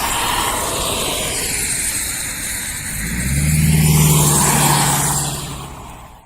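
A vehicle passing on a wet road: the hiss of its tyres on the wet surface swells and then fades away, with a low engine hum loudest a little past the middle.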